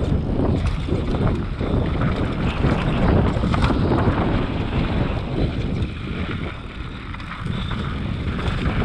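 Wind buffeting the camera microphone of a mountain bike descending at speed, with the tyres rolling over dry dirt and the bike rattling over bumps. The rush eases briefly about six to seven seconds in.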